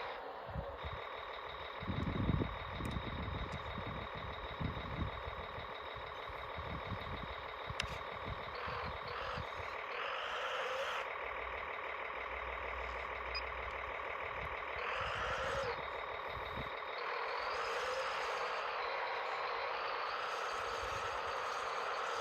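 Radio-controlled tracked vehicle (modified Kyosho Blizzard 2.0) running: a steady whine from its electric motor and gearbox, rising in spots as it speeds up, with a few low thumps near the start.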